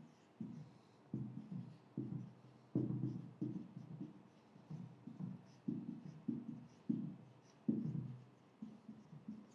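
Marker pen writing on a whiteboard: a run of short, irregular strokes and taps, about two a second.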